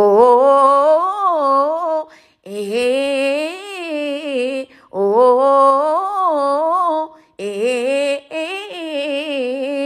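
A woman singing unaccompanied, a wavering, ornamented melody in four long phrases with short breaths between them.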